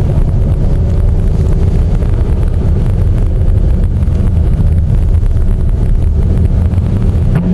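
Steady low rumble of a vehicle driving on a snowy road, heard from inside the cabin, mixed with wind noise.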